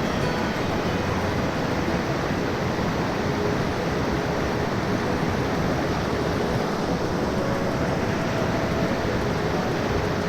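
Rushing mountain stream water, a steady even roar of fast water over rocks with no breaks.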